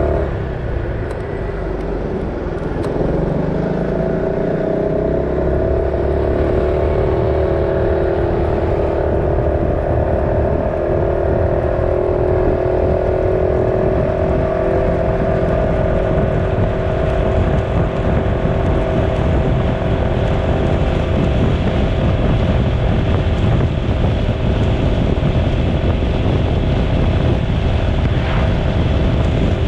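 Motorcycle engine pulling away and picking up speed over the first several seconds, then running steadily at cruising speed, with wind rushing over the microphone throughout.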